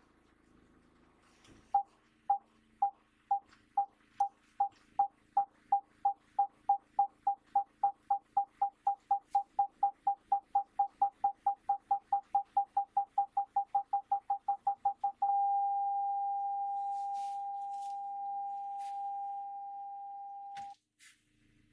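Vauxhall Vivaro rear parking sensor warning beeping as the van reverses toward an obstacle: single-pitch beeps, about two a second at first, come faster and faster as the gap closes, then become one continuous tone, the signal that the obstacle is very close, which cuts off suddenly near the end.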